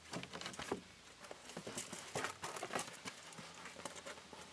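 Light, irregular clicks and taps of hand tools and wood being handled, several a second and unevenly spaced.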